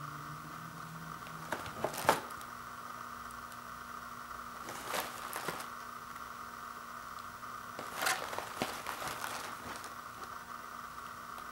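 Cardboard box being turned over in the hands: short taps and scuffs of fingers on the cardboard about two and five seconds in, and a cluster around eight to nine seconds in, over a steady faint hiss.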